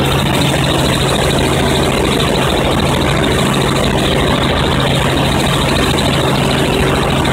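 Helicopter in flight, heard from the cabin: a loud, steady drone of engine and rotor with a constant low hum.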